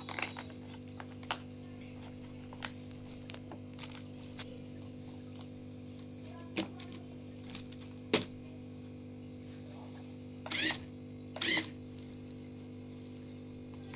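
Scattered sharp clicks and knocks of hard plastic toy parts being handled, with two short rattling bursts near the end, over a steady low hum.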